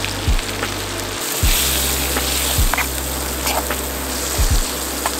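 Background music with a steady kick-drum beat and bass line, over the sizzle of sliced mushrooms frying in butter and garlic in a small pan. The sizzle grows stronger about a second and a half in.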